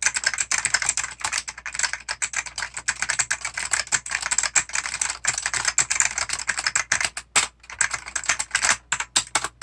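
Fast, continuous typing on a 1995 IBM mechanical keyboard with original Alps white switches: rapid keystrokes with a short break about seven seconds in.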